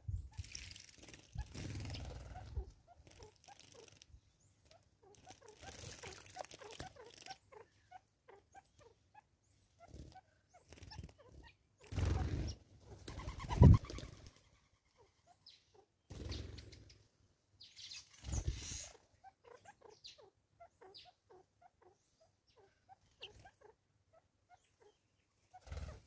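Small birds bathing in a shallow tyre bird bath: several bursts of splashing and wing-fluttering in the water, with short chirps in between. About halfway through there is one sharper, louder knock.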